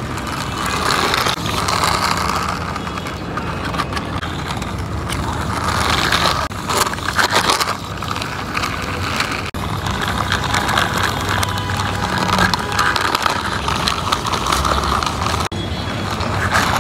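Small plastic wheels of a toy tricycle ice-cream van rolling and scraping along rough concrete as it is pushed by hand, a steady grainy grinding.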